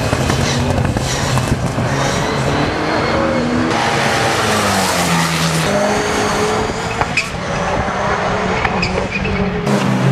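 Turbocharged race car engine running hard, its pitch rising and falling with throttle and gear changes, with a few sharp cracks in the second half.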